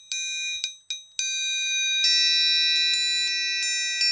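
Abel orchestral triangle struck with a triangle beater, ringing bright and high with many overtones. A quick run of strikes in the first second or so is followed by a longer ring, with lighter repeated taps over it in the second half.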